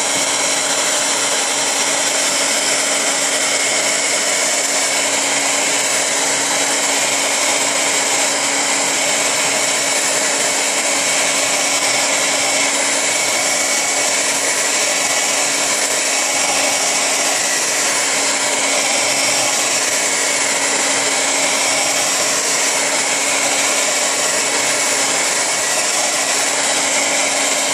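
Handheld hair dryer blowing steadily at close range, heating a phone's screen to soften its adhesive so the glass can be pried off. A steady low hum runs under the rush of air.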